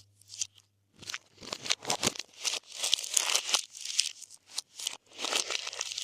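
Glossy slime being worked by hand, stretched and pressed with rapid sticky pops and crackles. The sound starts about a second in and keeps up densely.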